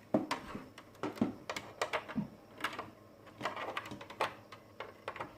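Irregular light clicks and knocks of plugs and cables being handled and plugged in behind a desk.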